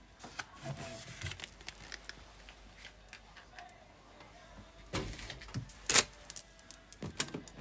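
Scattered light clicks, rattles and rubbing from a handheld phone being moved around, with a few sharper knocks about five to seven seconds in.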